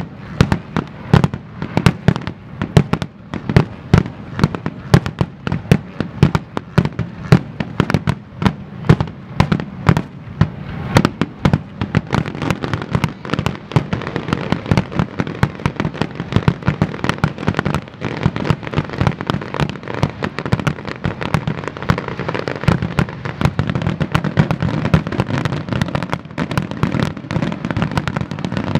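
Aerial fireworks shells bursting in a finale barrage: a dense, unbroken run of booms, several a second, with crackling filling the gaps from about halfway through.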